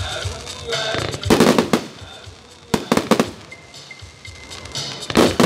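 Aerial firework shells bursting overhead: loud bangs and crackles about a second and a half in, a cluster of several around three seconds in, and another near the end. Music plays underneath.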